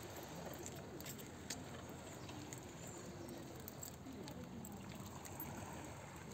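Faint lakeshore ambience: small waves lapping, with scattered light splashes and distant voices in the background.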